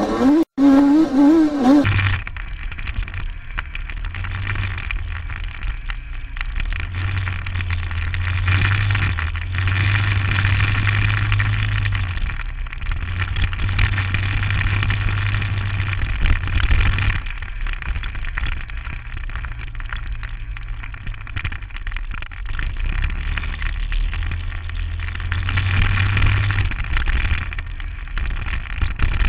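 Engine revving with rising pitch for the first two seconds. After a cut, a vehicle drives along a rough dirt trail: a steady low motor drone with jostling, rumbling ground noise, swelling and easing a few times.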